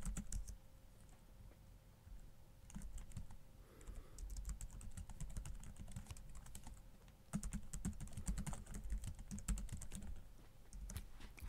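Fairly quiet typing on a computer keyboard: several runs of quick keystrokes separated by short pauses, the longest runs in the middle and latter part.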